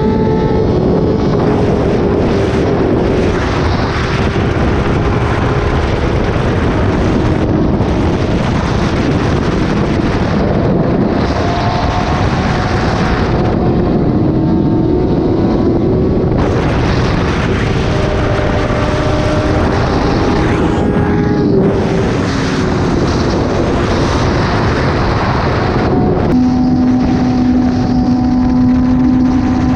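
Kawasaki ZX-10R inline-four engine with an SC-Project exhaust running under way, its note rising and falling with the throttle under heavy wind rush on the microphone. Near the end the wind drops away and the engine holds a steady, lower note.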